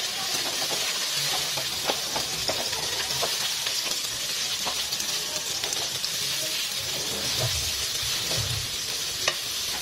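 Sliced red onions sizzling steadily in hot oil in a nonstick wok, with scattered light scrapes and taps of a wooden spatula stirring them.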